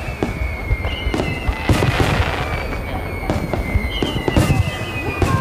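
Large aerial fireworks bursting in quick succession: sharp booms and crackling over a continuous rumble. A high whistling tone that slowly falls in pitch comes twice.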